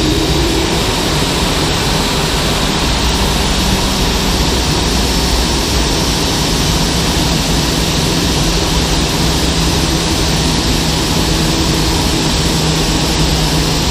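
Rolls-Royce Trent 1000 turbofan on a Boeing 787-9 running steadily after start: an even rush of jet noise with a low hum that comes in about a third of the way through.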